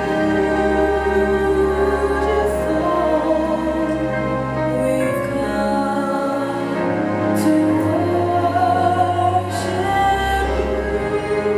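Gospel music with long held sung notes over a sustained low bass.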